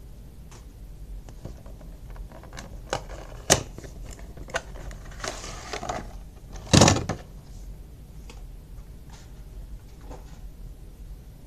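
Cardboard toy box and plastic packaging tray being handled: scattered clicks and rustles, then a longer scrape and one loud knock a little past halfway.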